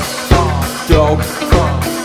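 Live band playing a song: a man singing over electric guitar, bass and a drum kit, with a steady drum beat that lands a little more than every half second.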